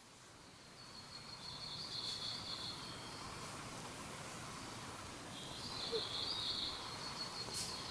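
Outdoor ambience fading in, with two stretches of high-pitched trilling calls, each about two seconds long, over a steady hiss.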